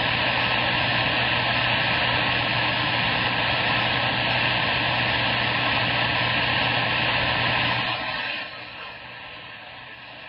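CB radio static hissing loudly from the radio's speaker after the transmission ends, a steady rush of band noise with faint steady whistles in it. About eight seconds in it drops suddenly to a much quieter hiss.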